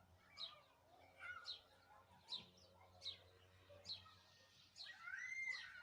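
Faint birdsong: short high chirps about once a second, with a longer arching call about five seconds in.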